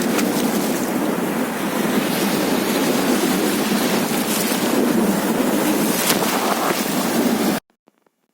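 Sea waves breaking and washing on a beach, with wind buffeting the microphone; the sound cuts off suddenly near the end.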